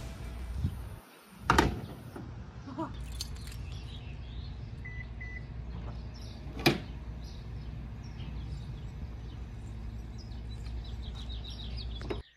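2019 Subaru Outback's power rear gate sounding two short beeps about five seconds in. A sharp knock comes about a second and a half in and another soon after the beeps, over a steady low wind rumble.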